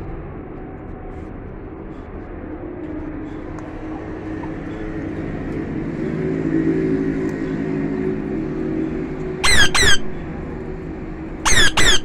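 Alexandrine parakeet giving four loud, harsh squawks in two quick pairs, about two seconds apart, near the end. Underneath runs a low steady hum that swells and fades.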